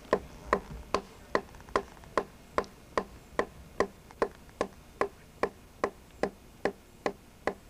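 A wooden club hammering a hafted stone gouge along a log, a steady rhythm of sharp knocks at about two and a half strokes a second, as the gouge shaves down the adze-chopped wood surface to smooth it.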